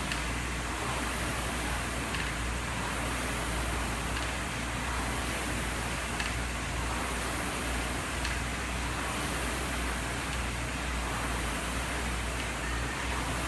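Air rowing machine's flywheel fan whooshing steadily, swelling about every two seconds with each rowing stroke, over a steady low hum.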